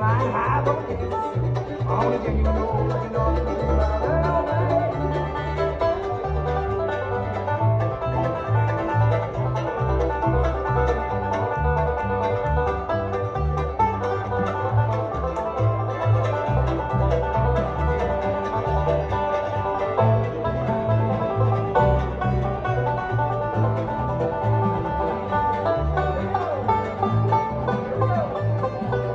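Live bluegrass instrumental: banjo picking over a steady walking beat from a plucked upright bass, with mandolin and acoustic guitar.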